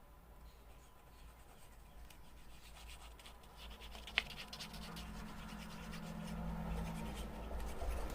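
Paper pieces being handled, scraping and rustling against each other and the page, with one sharp tap about four seconds in; the rustling grows louder toward the end.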